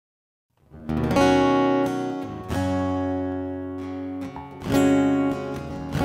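Intro music on strummed acoustic guitar, starting after a brief silence, with a fresh chord struck about every two seconds.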